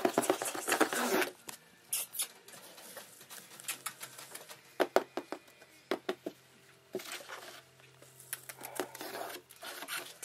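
Ferret scrabbling around a cardboard box: irregular light clicks and rustles of claws and paws on cardboard and carpet, busiest in about the first second.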